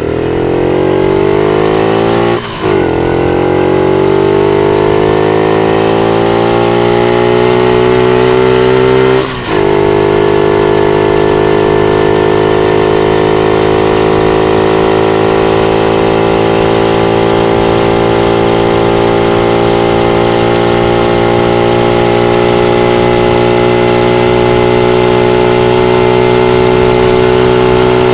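50cc Panterra dirt bike engine running under acceleration, its note climbing, dropping out briefly about two and a half seconds in and again about nine seconds in, then holding a steady pitch at cruising speed.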